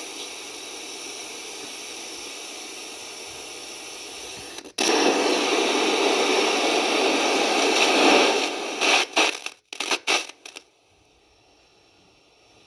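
Zenith R80 portable radio's speaker hissing with static as the tuning knob is turned and no station comes in. A little under five seconds in the static jumps much louder, then breaks up into choppy bursts and drops to a faint hiss for the last couple of seconds.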